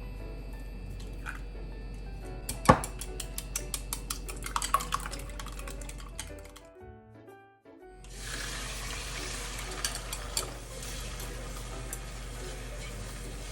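Kitchen dishes and utensils clinking and clattering for a few seconds, then a steady hiss starting about eight seconds in.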